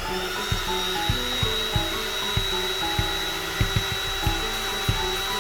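Electric air pump running steadily with a high whine, inflating an air mattress. Background music with a steady beat plays over it.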